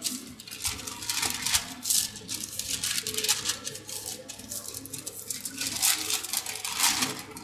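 Irregular rustling and crinkling of baking parchment as hands pull and stretch bread dough across it.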